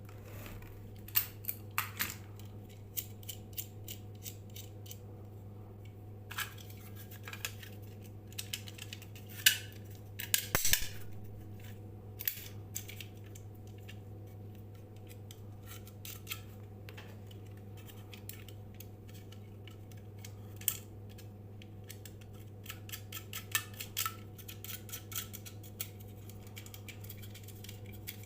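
Small tools or metal parts being handled, giving irregular clicks and clinks, over a steady low electrical hum.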